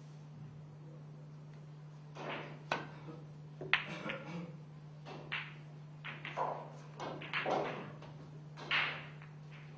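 A pool shot: the cue tip strikes the cue ball, and about a second later the cue ball hits an object ball with a sharp click. Softer knocks of balls rolling and hitting cushions follow over a steady low hum.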